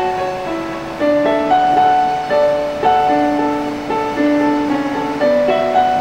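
Background piano music: a gentle melody of single notes struck one after another, each fading before the next.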